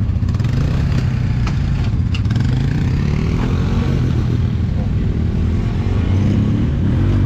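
ATV engine running steadily, with a few rises in revs through the middle; it doesn't sound good. The machine bogs in high gear, which the riders suspect is a slipping, dried-out drive belt.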